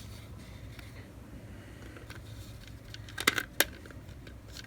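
A few sharp clicks of small hard parts knocking together, bunched a little after three seconds in, over a steady low hum.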